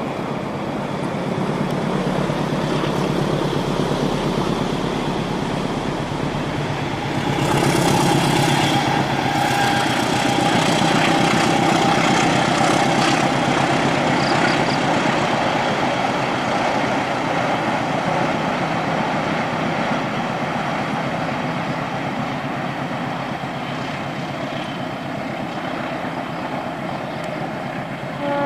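A train running past close by: engine noise and the rumble of the cars on the rails, growing louder about seven seconds in and then easing slowly. A horn starts right at the end.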